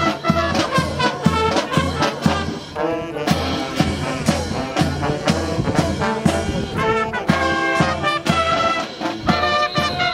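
Swing-style brass music, trumpets and trombones over a steady beat.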